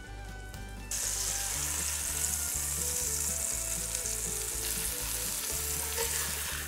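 Flour-dredged cube steaks sizzling as they sear in hot bacon grease and vegetable oil in a Dutch oven. The sizzle starts suddenly about a second in and continues steadily over quiet background music.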